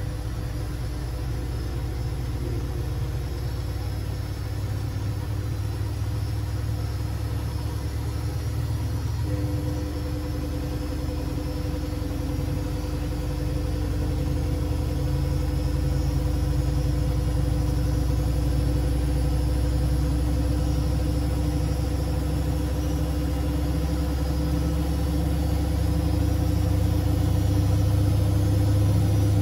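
Siemens Siwamat 6143 washing machine running during a boil wash: a steady mechanical hum that grows gradually louder, with a higher steady tone joining in about nine seconds in.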